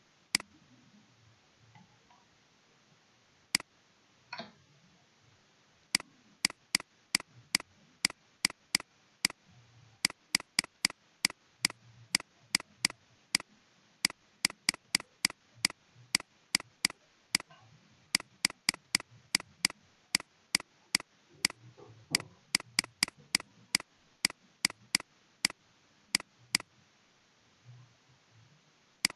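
Computer mouse clicking: a few single clicks, then from about six seconds in quick, even runs of sharp clicks, two to three a second, with short breaks.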